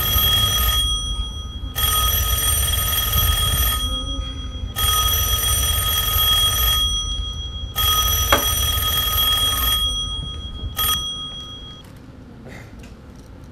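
Telephone ringing: four rings of about two seconds each with a second's pause between, then a brief fifth ring cut short about eleven seconds in as the call is answered.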